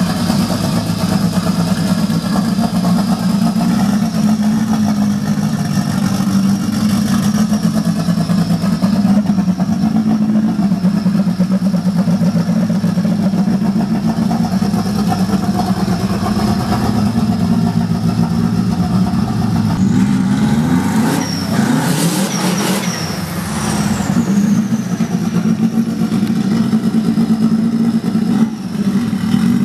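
Turbocharged Subaru EJ20 2.0-litre flat-four running steadily at low revs, with a thin high whine over the engine note. About two-thirds of the way through it is revved up once, and a high whistle falls away as the revs drop back.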